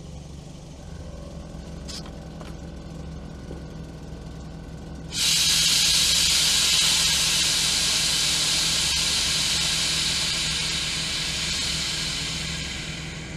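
Air suspension on a Volkswagen Golf GTI Mk1 letting air out of its bags to lower the car: a loud hiss starts suddenly about five seconds in and slowly fades. A steady low hum runs underneath.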